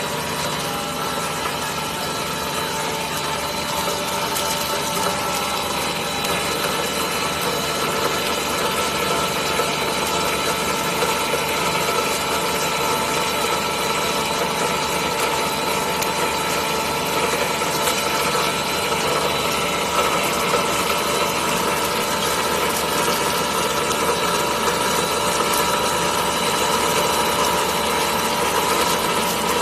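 A 1250 mm cast stretch-film production line running: a steady mechanical hum with several steady whining tones over a noisy hiss, growing slightly louder as it goes on.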